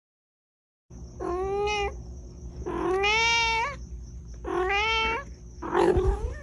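A domestic cat meowing four times, starting about a second in, each meow a drawn-out call that bends up and down in pitch; the last one is rougher.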